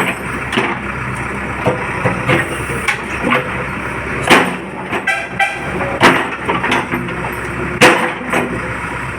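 JCB backhoe loader's diesel engine running steadily under load, with sharp knocks and cracks of concrete being struck and broken every second or two, the loudest about four seconds in and near the end.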